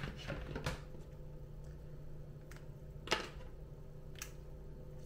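A few light clicks and taps from handling a marker and its cap, the sharpest about three seconds in, over a steady low hum.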